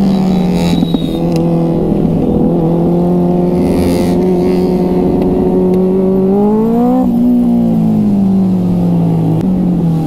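Motorcycle engine running under way, heard from the rider's seat. Its pitch climbs steadily for several seconds as the bike accelerates, drops sharply at a gear change about seven seconds in, then falls as the throttle eases.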